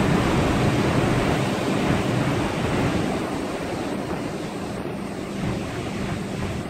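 Storm wind and heavy breaking seas rushing against a ship, with a faint steady low hum underneath.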